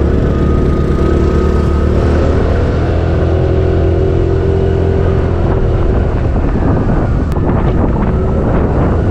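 Single-cylinder engine of a TVS Jupiter 125 scooter running at a steady pace while being ridden, with wind noise on the microphone.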